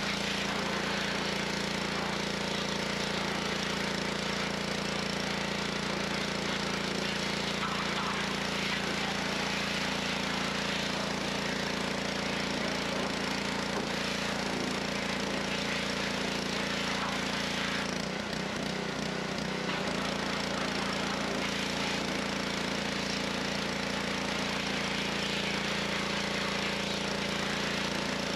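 Gas pressure washer's small engine running steadily, with the hiss of its high-pressure water jet spraying into a car's engine bay. The sound dips and wavers briefly about two-thirds of the way through.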